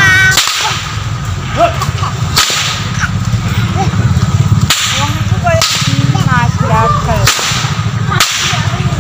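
Long pecut whips being cracked, about six sharp cracks spaced a second or two apart.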